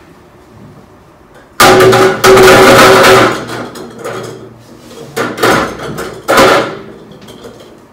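Draw balls clattering against a glass bowl and tall glass as they are tipped in, loud and ringing for about a second and a half, then a few shorter rattles as they are stirred and picked from the bowl.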